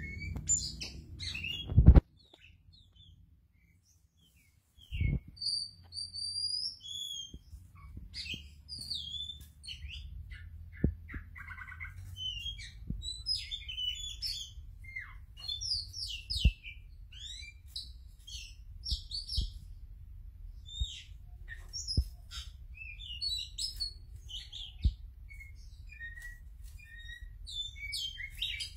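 Oriental magpie-robin (kacer) singing a rich, varied song of quick chirps, slurred whistles and a short buzzy rattle. A loud knock about two seconds in is followed by a few seconds of near silence, and small thumps come every few seconds through the song.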